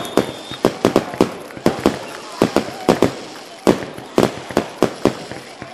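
Scattered hand clapping from a few spectators, sharp irregular claps about three or four a second, with faint voices underneath.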